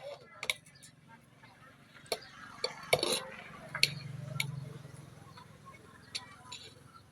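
Scattered sharp clicks and clinks of small metal tools and parts being handled, with a brief low hum about four seconds in.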